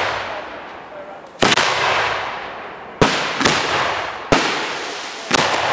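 Aerial fireworks shells bursting: five sharp bangs, two of them close together, each trailing off in a long rolling echo.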